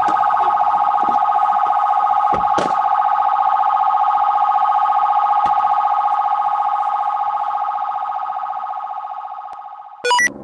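Police car siren sounding continuously as a fast, steady warble on two tones, fading away over the last couple of seconds. Just before the end, a short, loud electronic chirp of falling tones.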